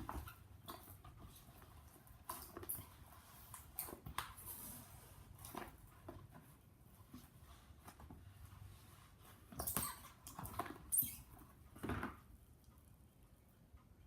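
Hand-kneaded slime mixed with clear glue, giving irregular small clicks and squelches, with a few louder pops about ten to twelve seconds in.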